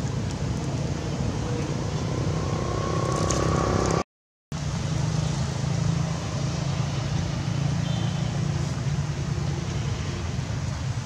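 Steady low rumble of outdoor background noise, broken by a half-second dropout to dead silence about four seconds in.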